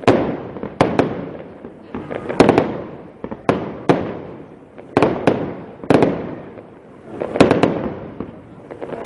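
Aerial firework shells bursting in quick succession: sharp bangs every half second to a second, some in close pairs or triplets, each trailing off in a fading echo.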